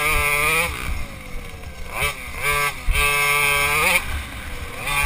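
Small engine revving under throttle in bursts: its pitch climbs for the first half-second and then falls away, blips twice around two seconds in, and climbs again in a longer pull before dropping off near four seconds. Wind rumble on the microphone runs underneath.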